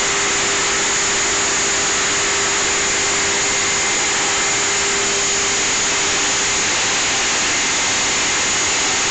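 Feed mill machinery running: a steady, loud rushing noise with a steady hum that fades away a little after halfway.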